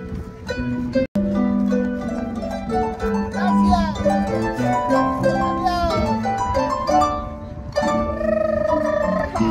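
A street harpist plucking a large wooden Mexican folk harp, playing a melody over bass notes. The sound cuts out for an instant about a second in.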